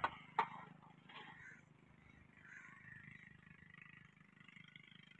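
Two sharp metallic clicks about half a second apart at the start, as the stationary diesel engine is worked on by hand, then a faint steady low hum.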